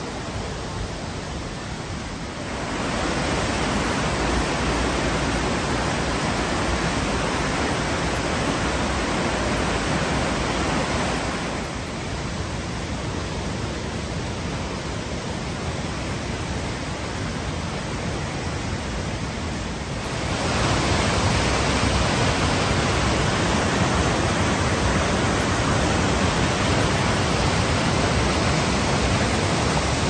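Rushing white water of the Düden River and Waterfall, a steady, even rush. It steps louder about two seconds in, softer around eleven seconds, and louder again about twenty seconds in.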